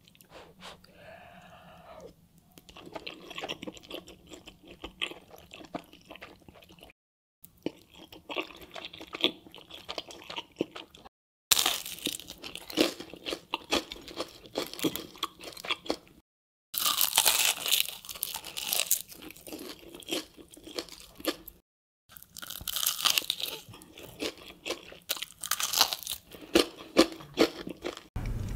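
Close-miked mouth sounds of eating: chewing soft pasta, then loud crunching bites of breaded fried chicken. They come in several short stretches broken by brief dead-silent cuts, and are louder and crunchier from about a third of the way in.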